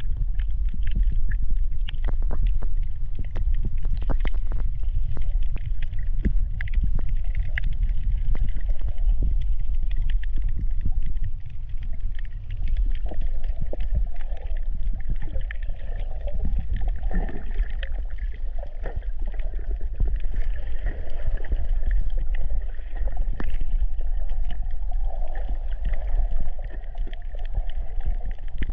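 Underwater sound picked up by a submerged camera: a steady low rumble of moving water, dotted with many sharp crackling clicks.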